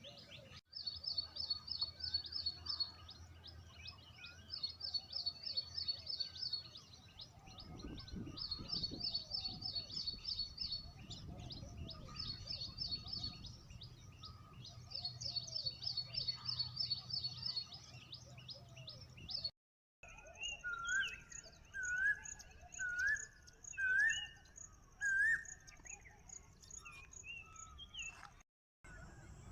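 Wild birds singing: rapid high trills repeated in bursts of a second or two, with other chirps among them. In the last third, a different bird gives five short rising whistles about one a second, with a thin high steady note above.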